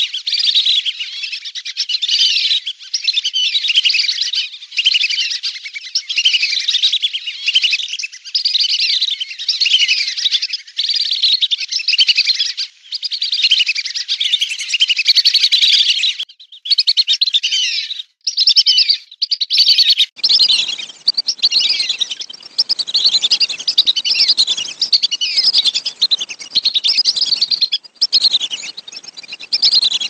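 A flock of whistling ducks (belibis) calling together: many high, falling whistles overlapping almost without pause. About twenty seconds in, a faint low background noise joins the calls.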